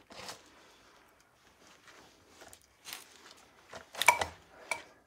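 Steel tractor-axle parts and tools handled on a workbench, knocking and clinking a few times, with one sharp metallic clank that rings briefly about four seconds in.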